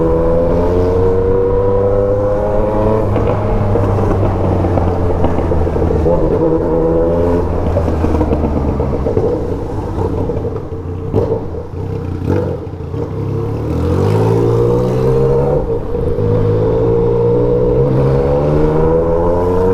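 Yamaha MT-09's three-cylinder engine with a remapped ECU, pulling steadily under way with its pitch slowly rising. It eases off about ten seconds in, then climbs again from about fourteen seconds in as the bike accelerates.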